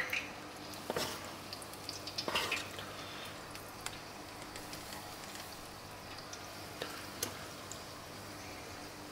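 Hot oil sizzling in an electric deep fryer at 180 °C as balls of oliebol batter fry, with a few short scrapes and clicks of a metal scoop against the batter bowl, mostly in the first few seconds.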